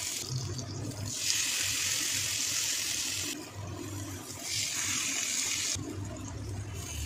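Slices of elephant foot yam sizzling in hot oil in a frying pan, the hiss flaring up loudly about a second in and again near five seconds as fresh slices go into the oil.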